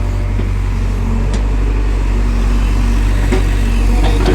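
Excavator's diesel engine running steadily as a deep, low drone, with a few faint clicks over it.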